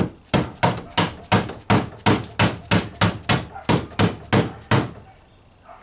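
Steady hammer blows driving a VW Beetle's upper door hinge into place, about three strikes a second, stopping about five seconds in.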